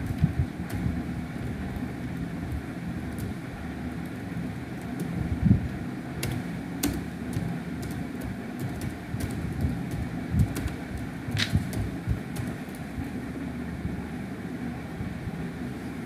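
Scattered computer keyboard key clicks at an irregular, slow pace over a steady low background rumble.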